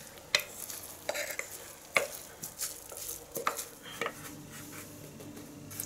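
A wooden spoon scrapes and knocks lightly against a glass bowl as very wet, sticky ciabatta dough is worked out onto a floured metal baking tray, with a few sharp taps scattered through. Soft handling of the dough by hand follows.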